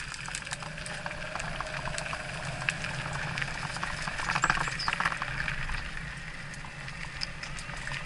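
Electric mountain bike being ridden over a rough trail: tyres crackling and ticking over gravel and small stones, over a steady low hum.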